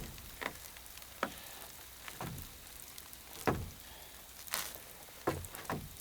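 Wood fire crackling, with scattered sharp pops about once every second or so.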